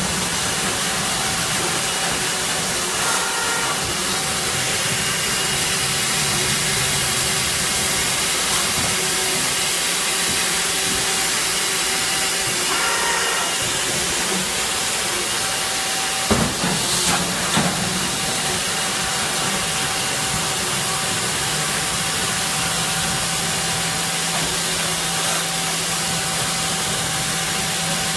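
CNC machine running: a steady hiss with a constant motor hum underneath, and a few sharp knocks about sixteen to eighteen seconds in.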